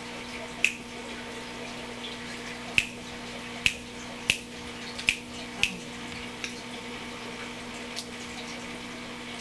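A series of about eight short, sharp clicks at uneven intervals, over a steady hum.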